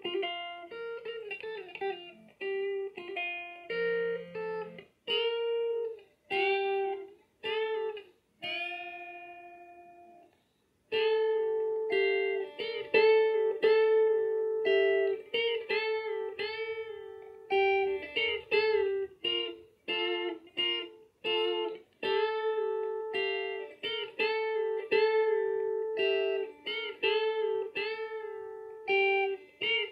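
Solo electric guitar played clean straight through an amp with no effects, picked up by a phone's microphone. It plays a slow melody of separate plucked notes, with a short silence about a third of the way in, after which the phrases come denser and louder.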